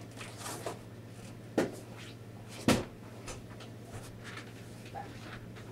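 Two sharp knocks about a second apart, with fainter clicks and rustles, as a person climbs into the driver's seat of a Jeep CJ; the engine is not yet running, and a steady low hum sits underneath.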